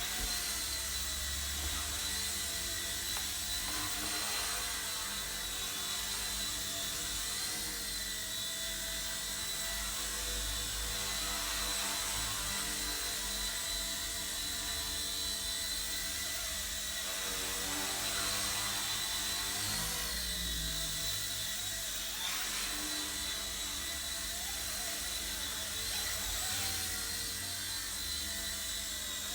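Eachine E129 micro RC helicopter in flight, its electric motors and rotors giving a steady high whine that wavers slightly in pitch as it manoeuvres.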